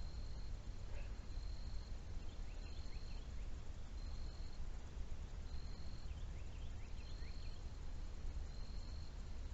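Outdoor waterside ambience: a high, thin buzzing call repeats about once a second, with faint short chirps scattered through it over a steady low rumble of wind or water.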